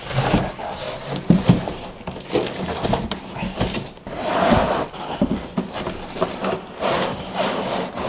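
Cardboard box and plastic packaging being handled while a toaster oven is unpacked: irregular rustling and scraping with scattered knocks.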